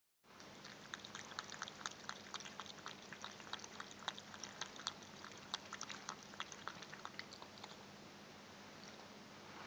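Cat lapping water from a pet drinking fountain: a quick run of small wet clicks, about three to four a second, that stops about eight seconds in.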